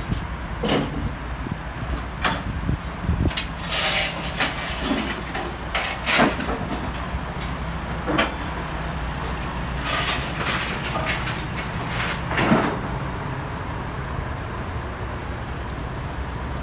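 City street traffic: a steady low vehicle hum with a dozen irregular sharp clanks and hisses over the first twelve seconds or so.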